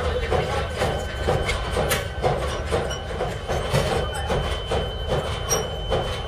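Steady mechanical clatter in an even rhythm of about three beats a second, with a faint steady whine over it.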